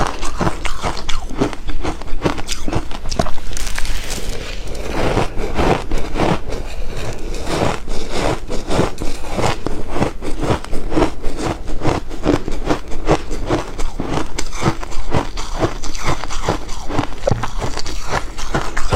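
Close-miked biting and chewing of ice: rapid, irregular crunching as the ice cubes are crushed between the teeth.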